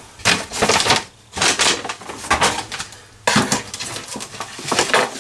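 Ingredient packets and containers being moved about on a kitchen counter: irregular rustling and clattering of plastic packaging and small items, in three bursts of handling.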